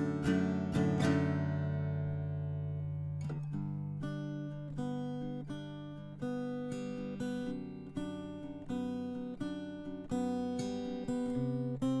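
Background music on acoustic guitar: a strummed chord rings out for about three seconds, then picked notes follow, several a second.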